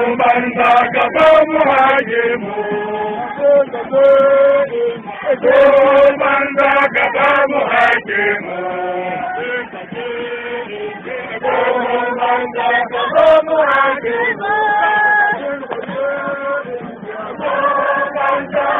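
Men's voices chanting together in a melodic chant, with long held notes.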